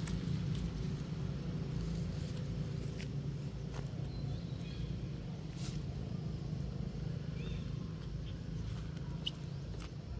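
Outdoor ambience: a steady low hum with light crackling of dry leaves and a few faint, short, high chirps.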